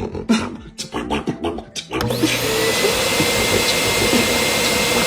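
A rapid series of sharp knocks or shots for about two seconds, then a sudden loud steady rushing noise with a thin whine in it, like a vacuum cleaner or small motor running.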